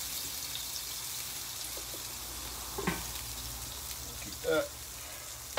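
Bacon and eggs sizzling on a hot flat-top griddle, a steady hiss. There is a light knock about three seconds in and a brief voice near the end.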